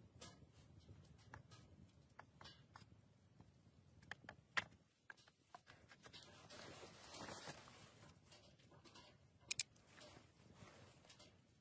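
Near silence with faint handling of cooking utensils and glass spice vials: scattered light clicks and taps, a soft hiss lasting about two seconds from about six seconds in, and a sharp double click near the end.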